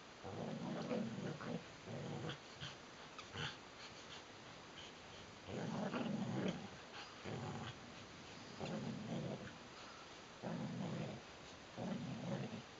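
Border collies growling in play during tug-of-war with a toy, in repeated bouts of about half a second to a second with short pauses between.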